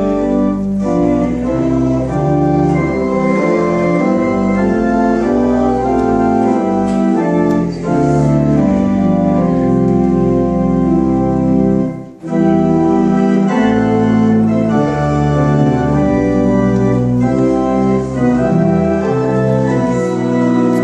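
Pipe organ playing the recessional in sustained full chords, with a brief break in the sound about twelve seconds in.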